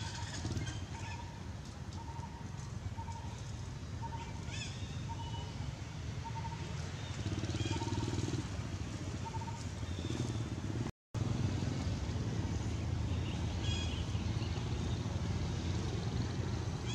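A steady low rumble with a short clear note repeated evenly for about the first nine seconds, and a few brief high chirps.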